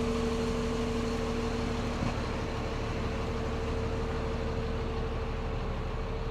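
Engine of an Iveco 170S28 bus idling, heard inside the cabin as a steady low rumble with a steady hum above it; a second, lower hum stops about two seconds in.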